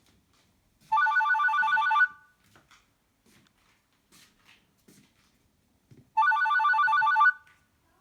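Doro 1360 mobile phone's electronic ringtone sounding through its speaker: a rapid warbling trill like a telephone bell, heard twice, each ring about a second long and the second about five seconds after the first.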